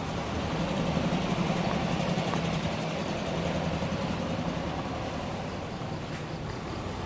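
Motor-vehicle engine running with a steady low hum from traffic on the road bridge overhead, a little louder about a second in and easing off toward the end.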